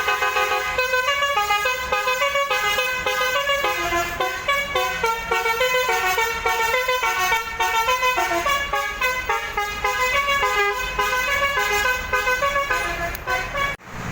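Bus 'basuri' melody horn, a set of air-horn trumpets, playing a fast tune of quickly changing notes; it stops abruptly near the end.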